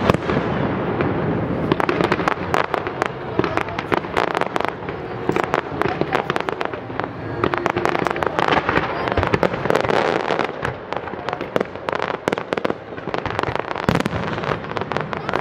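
Fireworks display: a dense, continuous barrage of bangs and crackles from many shells bursting in quick succession.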